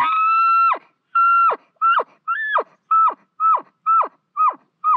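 Bull elk bugle imitated on a mouth call blown through a corrugated bugle tube. A high held whistle breaks off and drops away just under a second in, followed by eight short chuckles about two a second, each one falling sharply in pitch.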